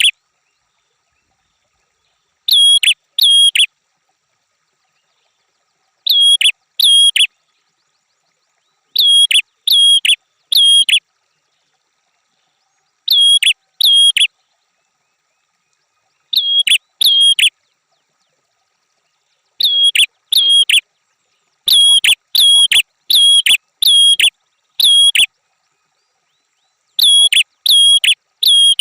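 Red-headed prenjak calling: runs of two to five sharp, identical chip notes in quick succession, the runs coming every few seconds with dead silence between.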